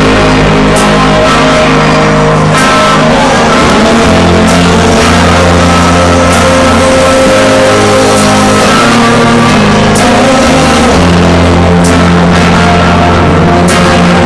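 Live rock band playing very loudly: electric guitar and drums with regular cymbal crashes.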